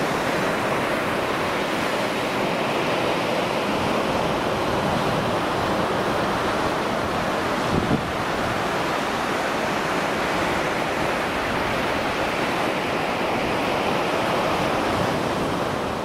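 Surf breaking steadily on a beach, with wind rushing over the microphone. A short thump comes about eight seconds in.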